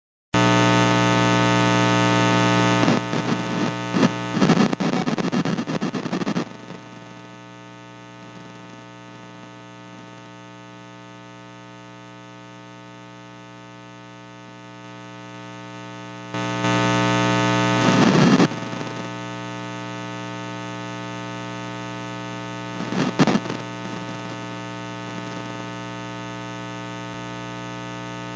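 Electrical mains hum on the audio line, a steady buzz rich in overtones. It starts suddenly, drops in level about six seconds in and swells again briefly later, with short bursts of crackling static several times.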